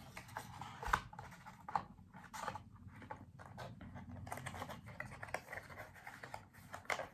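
Hands handling packaging and a cable: rustling and scratching with scattered light clicks, and a sharper knock about a second in.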